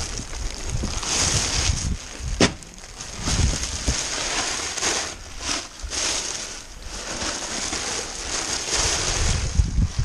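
Plastic bags rustling and crinkling as they are handled and rummaged through, with a sharp knock about two and a half seconds in.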